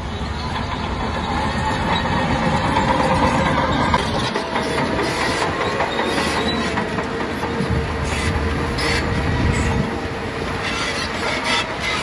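Crawler bulldozer at work: diesel engine running with its steel tracks clanking and squealing as it moves, the clanks coming thicker in the second half.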